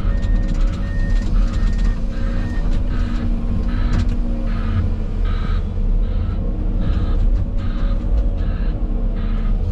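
Heavy diesel machinery running steadily, with a reversing alarm beeping about twice a second.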